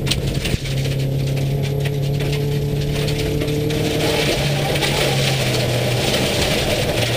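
Subaru rally car's flat-four engine running hard, heard from inside the cabin, with a short break in the engine note about half a second in and a change in note about four seconds in. Gravel noise from the tyres and stones grows louder through the second half.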